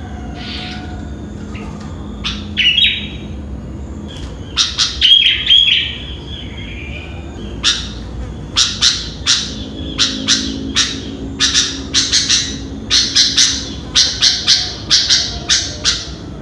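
Sooty-headed bulbul (kutilang) calling: a few scattered notes, a loud cluster of calls about five seconds in, then a fast run of sharp chirps, two to three a second, from about halfway through.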